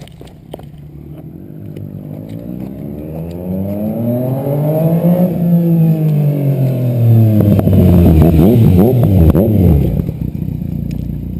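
Yamaha FZ-09's 847 cc inline-three through an M4 exhaust with the dB killer removed, running straight-piped and loud. It draws closer, climbing in pitch and then dropping as it slows. Close by it revs with several quick rises and falls, then settles into a steady idle about ten seconds in.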